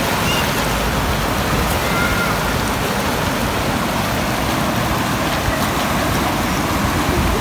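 Swat River rapids rushing over rocks: a steady, unbroken roar of fast whitewater.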